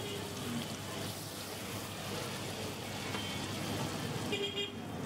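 Butter sizzling under a bun toasting on a flat iron griddle, against steady street traffic noise, with a short car horn toot near the end.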